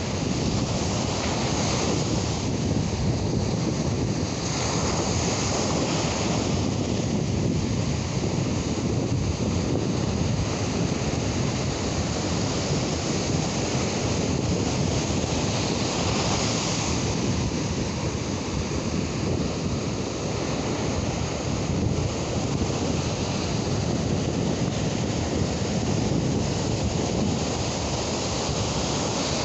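Steady noise of ocean surf breaking on a beach, with wind buffeting the microphone.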